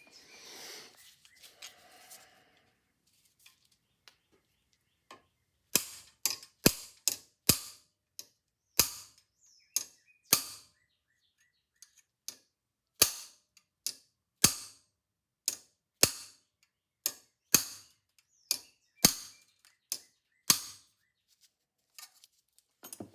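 A series of sharp, irregular metal taps or knocks, about two dozen spread over some fifteen seconds, made while working a stuck mainspring in a clock's spring barrel held in a vise.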